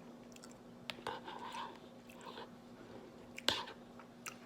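A person chewing a mouthful of berries and pomegranate seeds in coconut water, with wet, crisp bites and scattered mouth clicks. The loudest click comes about three and a half seconds in.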